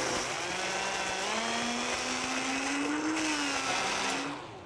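Countertop blender running, blending ice, milk and chunks of Derby pie into a smoothie. The motor's pitch rises gradually, then it is switched off a little after four seconds in and winds down.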